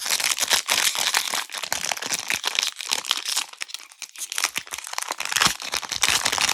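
Foil Pokémon trading card booster pack wrapper being handled and torn open, a dense run of crinkling and crackling.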